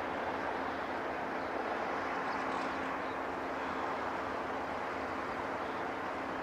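Steady mechanical hum with a constant rush of noise, even and unchanging.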